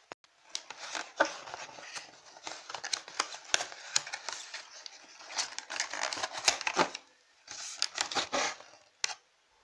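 Cardboard carton of Kinder Joy eggs being opened by hand: the flap pried and torn along its edge, with a dense run of scratchy cardboard scraping, clicking and tearing, a short pause, then another burst.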